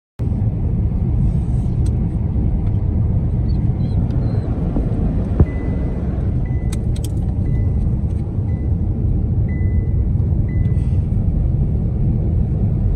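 A car driving, with a steady low road rumble.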